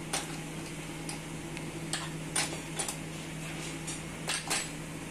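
Hands tossing and separating oiled boiled noodles in an aluminium colander, with a few scattered light clicks and taps against the metal. A steady low hum runs underneath.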